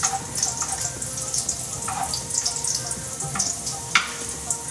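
Bacon sizzling and crackling in an aluminium frying pan, with a few clicks of metal tongs against the pan as the pieces are turned, the sharpest about four seconds in.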